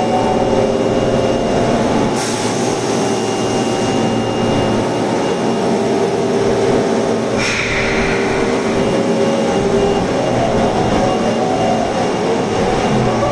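Osaka Metro Tanimachi Line 22-series subway train running: steady running noise with several held tones, and two short bursts of hiss about two and seven seconds in.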